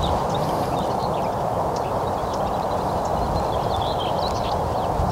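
Wind rushing over the microphone with a low, uneven rumble, and small birds chirping.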